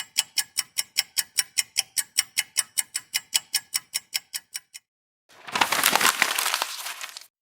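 Clock-ticking sound effect: rapid, even ticks, about five a second, for nearly five seconds. After a short pause comes about two seconds of paper being crumpled, a crackling rustle that fades toward the end.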